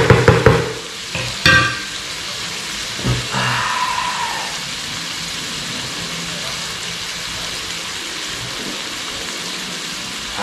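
Pork stomach, kidney and beef liver sizzling in a skillet, stirred and scraped with a wooden spatula for the first second or so, with a sharp clink about 1.5 s in. After that the pan keeps up a steady sizzle.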